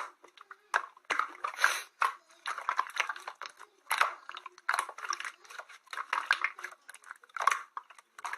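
Slime being squeezed and kneaded by hand, giving clusters of wet clicking and crackling pops about once a second.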